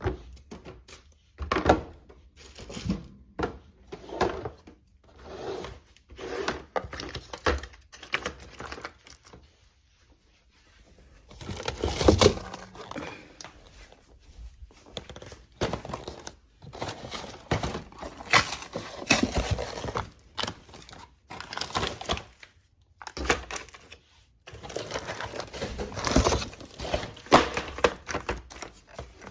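Irregular light knocks, taps and clatter with some crinkling, as of grocery boxes, jars and plastic bins being handled and set down on shelves, in a small room.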